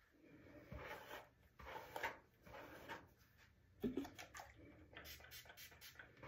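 A bristle paddle brush dragged through tangled hair in repeated strokes, a faint scratchy rustle every half second or so, with a light knock about four seconds in.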